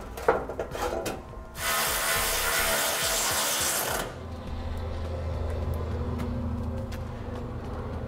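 A few clicks and knocks as a sheet-metal exhaust heat shield is handled, then a cordless power ratchet runs for about two and a half seconds driving in a heat shield fastener. A quieter steady low hum follows.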